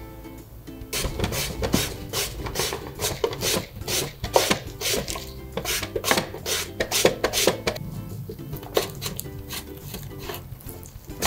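A peeled, boiled potato being rubbed back and forth over a box grater, a run of quick rasping scrapes, one with each stroke, starting about a second in with a short lull near the end. Soft background music plays underneath.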